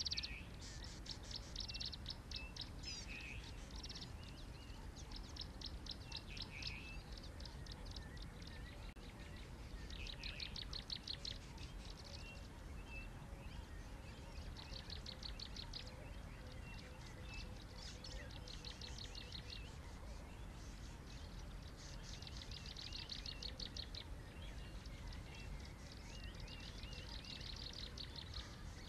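Small birds calling in short bouts of rapid, high-pitched trills, every second or two, with brief chirps between them, over a steady low background noise.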